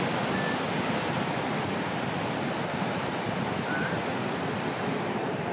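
Steady roar of giant ocean waves breaking, a continuous rush of whitewater.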